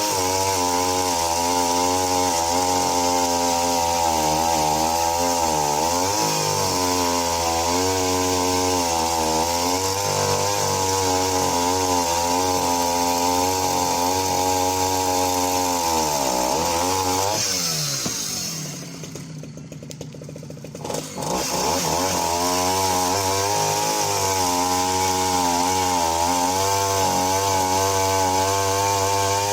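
Husqvarna L65's 65cc two-stroke chainsaw engine running at full throttle while cutting a log about 14 inches thick, its pitch sagging briefly several times as the chain takes load. About two-thirds of the way through the revs fall away to a low idle for a few seconds, then it is throttled back up to full speed and cutting resumes.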